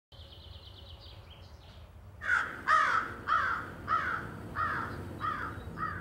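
A bird cawing seven times in a row, each call fainter than the last. Before the caws there is a faint, high, quick trill from a smaller bird.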